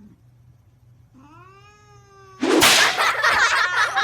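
Domestic cat meowing once, a short call that rises in pitch and then levels off, about a second in. Just past halfway a loud, sudden noisy burst starts and carries on; it is the loudest sound here.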